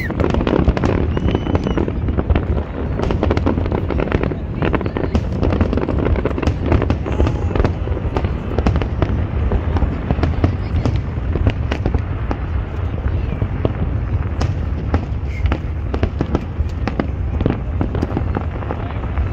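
Aerial fireworks display: a dense, unbroken barrage of overlapping shell bursts, bangs and crackles, over a constant low rumble.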